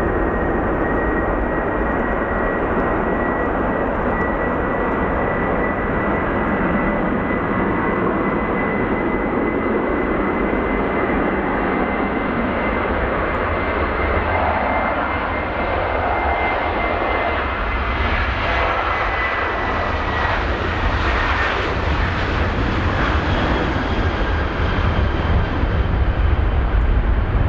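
Boeing 737-700's CFM56-7B turbofan engines at takeoff thrust during the takeoff roll and rotation. A steady high whine rides over a dense engine roar, drops a little in pitch about twenty seconds in, and the deep rumble grows louder near the end as the jet lifts off.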